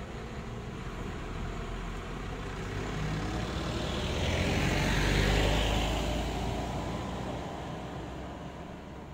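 A motor vehicle driving past: engine rumble and tyre noise grow louder to a peak about five seconds in, then fade away.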